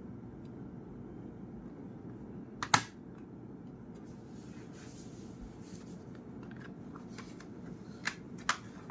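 Plastic lid of a Kenwood DPC-X602 portable CD player snapping shut with one sharp click a little under three seconds in. Near the end, two lighter clicks come as its controls are handled, over a steady low hum.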